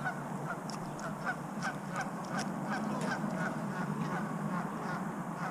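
Goose calling in a rapid series of short honks, about four a second, for roughly the first three seconds, over a steady low background rumble.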